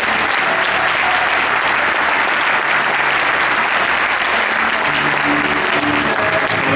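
Audience applauding, with the musical's accompaniment playing softly underneath; the music's notes come through more clearly near the end.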